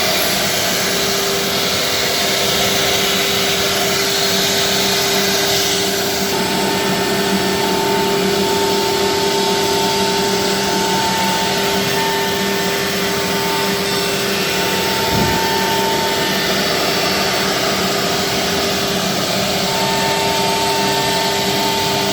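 Four-head industrial CNC wood router running: a steady whine over a broad hiss, with a higher tone that comes and goes.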